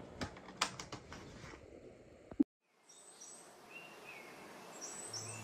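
A few sharp clicks, then after a brief dropout, quiet outdoor air with birds chirping a few times. A low musical note begins near the end.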